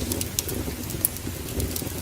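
Wood fire crackling, with sharp irregular pops over a low steady rumble.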